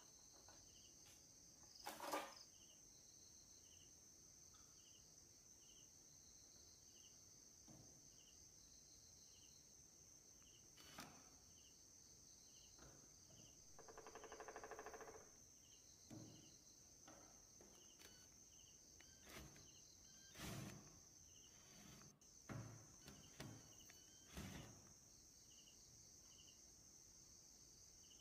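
A cordless drill-driver runs for about two seconds near the middle, backing out a screw. Light knocks and clicks of plastic parts being handled come before and after it. Otherwise near silence, with a faint steady high hiss and a soft chirp about once a second.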